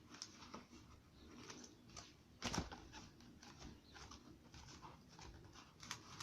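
Faint scratching and light handling sounds from hand work on a cardboard model, with one sharper knock about two and a half seconds in.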